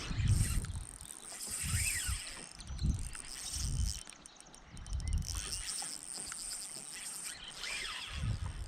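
Insects trilling steadily and high-pitched, with irregular low thuds about once a second.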